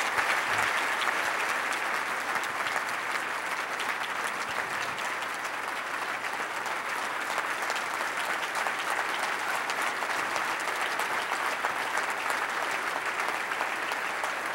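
A large audience applauding steadily, many hands clapping at once, a little louder in the first couple of seconds.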